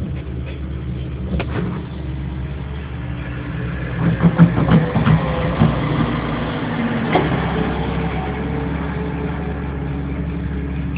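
Diesel engines running, a steady low drone close by, as a Tatra Terrno1 dump truck drives past. A burst of loud knocks and rattles comes about four seconds in, with single knocks before and after.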